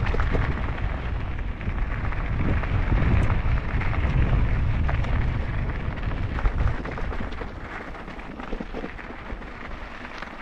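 Wind buffeting the microphone of a camera riding on a moving mountain bike: a heavy, uneven rumble with scattered clicks and rattles. It eases about seven seconds in.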